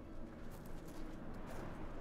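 Footsteps crunching and shuffling on gravel, a few irregular steps over a steady outdoor background hiss.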